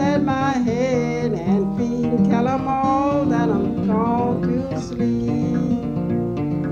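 Fingerpicked acoustic guitar playing a folk tune, with a sung melody over it until about four seconds in.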